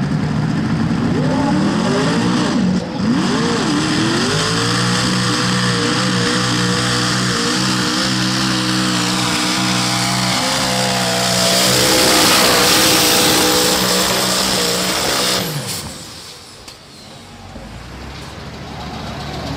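Chevrolet engine of a light modified pulling tractor revving up over the first few seconds, then held at high revs under full load as it drags the sled, with a loud rush of tyres and dirt building toward the end. About fifteen seconds in the engine sound cuts off sharply as the pull ends.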